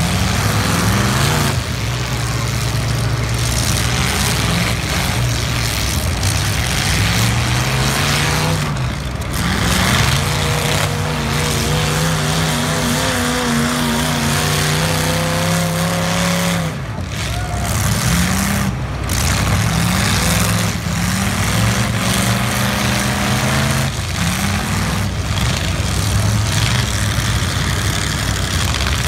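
Several demolition derby cars' engines running and revving hard at once, their pitch repeatedly rising and falling over a steady engine noise.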